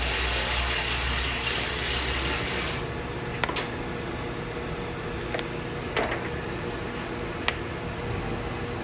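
A power tool running steadily with a high whine, stopping abruptly about three seconds in, followed by a few light clicks and knocks.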